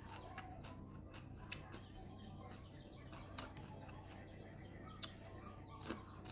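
Close-up eating sounds: crisp crunches and clicks of raw cucumber and leafy greens being bitten and chewed, a few sharp ones spaced a second or two apart. A faint steady low hum runs underneath.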